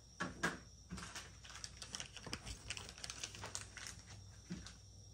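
An irregular run of small clicks, taps and rustles from hands working a camshaft position sensor and its electrical connector on a Mercedes M157 engine, the sharpest click about half a second in.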